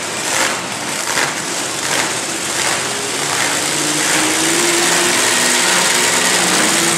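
Monster truck engines running loud and rough, revving in short surges at first, then holding a steadier, slightly rising note through the second half, which is the loudest part.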